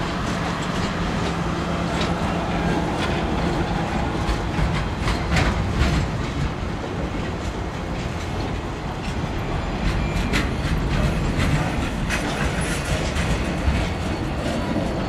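RBBX circus train's passenger cars rolling past at close range: a steady rumble of wheels on rail, with scattered sharp clicks as the wheels cross rail joints.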